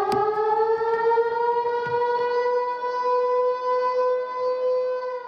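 Air-raid siren sound effect in a dance music track, finishing its rise in pitch and then holding one steady tone before cutting off suddenly.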